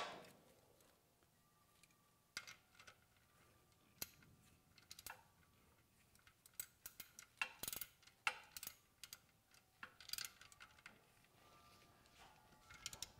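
Ratchet wrench clicking in short runs while snugging the 15 mm oil drain plug back into the oil pan, after a single sharp knock right at the start.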